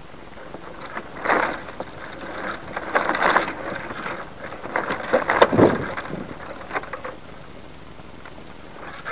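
Gusts of wind buffeting the deck-mounted microphone of a radio-controlled yacht, in several surges, with clicks and rattles from the rigging as the boom swings across the deck and back.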